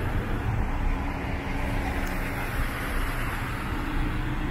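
Steady road and traffic noise: a constant low rumble of tyres and engines, with oncoming cars going by in the other lane.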